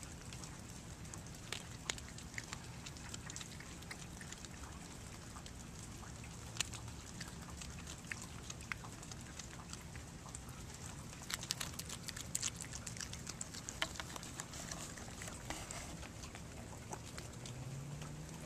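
A cat chewing and crunching a freshly caught mouse, with irregular short wet clicks and crunches. They come thickest a little past the middle.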